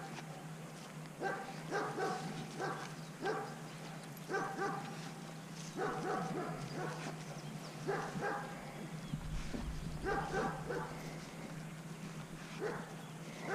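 A dog barking repeatedly, two or three short barks at a time in loose bunches about every second or two.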